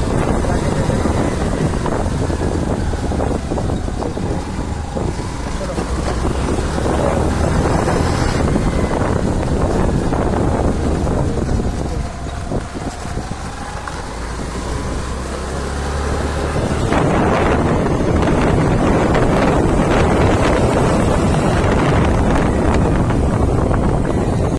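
Road and engine noise of a moving vehicle, with wind buffeting the microphone; it grows louder about two-thirds of the way through.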